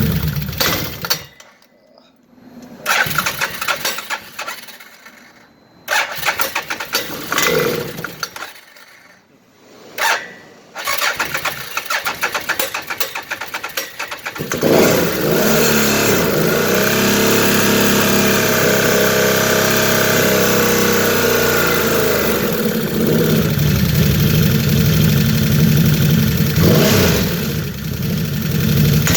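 Can-Am Outlander 800 ATV's V-twin engine cutting out, then cranked and caught after a few short tries, running unevenly at first. It is then revved up for several seconds and settles back to idle, during which the CVT clutch is heard kicking in and out a little, the noise the owner is chasing.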